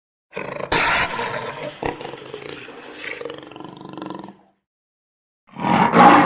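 A big cat roaring: one long roar, then a second roar begins near the end.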